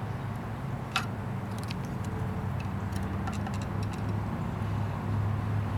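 Small metallic clicks and ticks of a screwdriver and feeler gauge working on a Vespa 400's contact-breaker points, with one sharper click about a second in, over a steady low hum.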